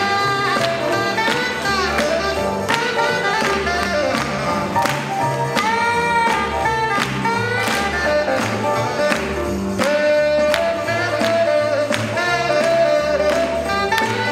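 Up-tempo swing jazz with a steady beat and melodic lines over it.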